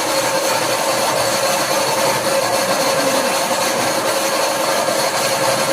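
Milling machine running and cutting: a loud, steady grinding noise with a constant tone in it.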